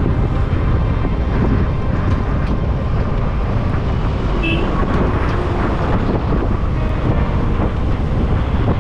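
Car driving through city traffic: steady road and engine noise with the rumble of surrounding vehicles.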